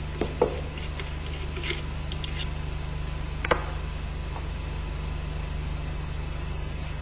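A few light metal clicks as a hook spanner and a spacer are taken off the clutch shaft of an MZ 250/251 motorcycle engine: two soft clicks just after the start and a sharper one about three and a half seconds in. A steady low electrical hum runs underneath.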